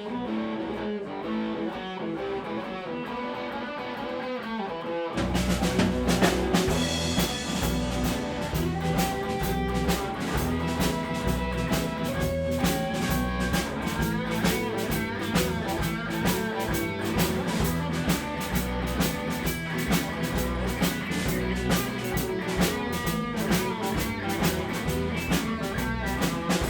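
Blues band playing an instrumental intro: electric guitar alone for about five seconds, then drums and bass join in a steady blues groove.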